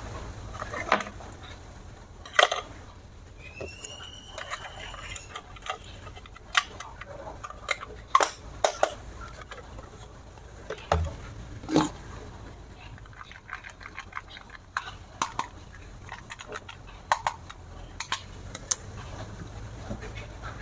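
Irregular clicks, taps and knocks of hard objects being handled, with a brief chirp-like tone about four seconds in.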